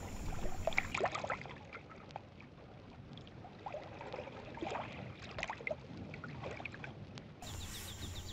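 Faint water bubbling and gurgling, with scattered small pops and trickles. Near the end it gives way to an outdoor ambience with a rapid run of high chirps over a low hum.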